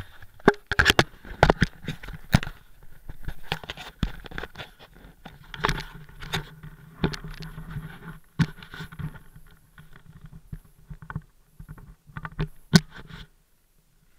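Close handling noise of an action camera being moved and set in place: irregular knocks, scrapes and rustles, with one sharp knock near the end, stopping suddenly about a second before the end.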